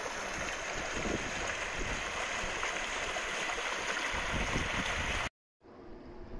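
Small stream rushing and splashing over rocks, a steady hiss of running water. About five seconds in it cuts to a much quieter stretch of the stream.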